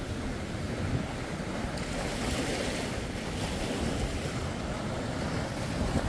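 Surf breaking in the estuary channel, a steady rush of water, with wind buffeting the microphone in a low, uneven rumble.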